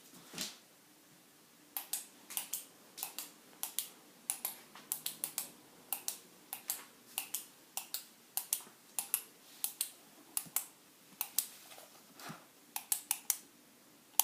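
A dog sniffing: a long run of short, sharp sniffs in irregular clusters, several a second, starting about two seconds in.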